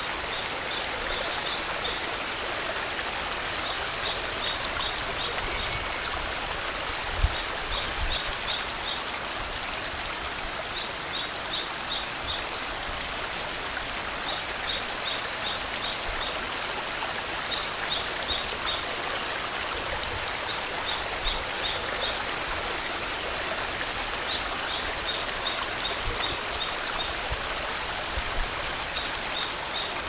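Mountain stream rushing over rocks, a steady, even flow of water. A bird repeats a short phrase of rapid high notes about every three seconds, and there is one brief low thump about seven seconds in.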